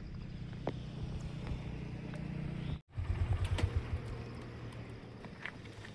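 Motor vehicle engine running with a steady low rumble. The sound cuts out for an instant just before three seconds in, then returns louder.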